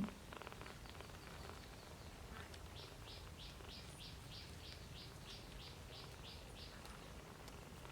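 A steady series of short, high chirps, about four a second, from a small animal such as a bird or an insect, starting about three seconds in and stopping near the end.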